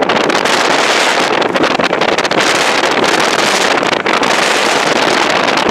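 Airbus A320 twin jet engines at takeoff thrust as the airliner accelerates down the runway and rotates: a steady, loud rushing noise, mixed with wind buffeting the microphone.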